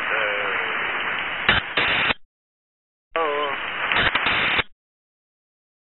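Two-way radio transmissions: a hiss of static with brief bits of a man's voice, twice cutting off abruptly to dead silence as the transmission ends, with sharp clicks just before each cut.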